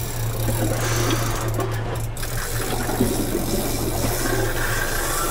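Boat's outboard motor running at low revs with a steady low hum and a rough mechanical rattle over it.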